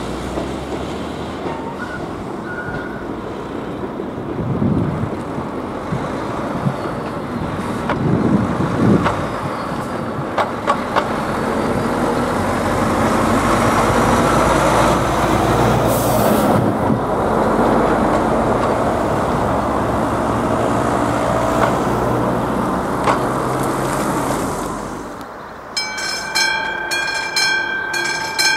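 Road traffic driving over a level crossing, with an articulated lorry passing close by, loudest in the middle. A few seconds before the end, the crossing's classic electric warning bell starts ringing in a steady pulsing rhythm, about twice a second, the signal that a train is approaching.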